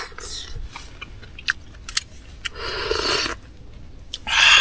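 Someone eating close to the microphone: biting and chewing a chicken wing hot enough to burn the fingers, with quick sharp clicks, a longer noisy burst about halfway through and a louder one near the end.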